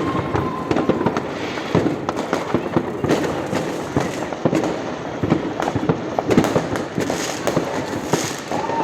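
Fireworks and firecrackers going off in rapid succession, a dense, continuous run of bangs, pops and crackles.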